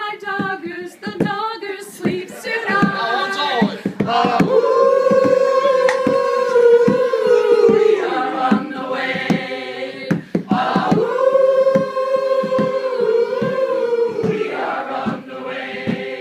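A chorus of amateur voices singing together: a quick rhythmic chant at first, then two long held notes that each slide down at the end.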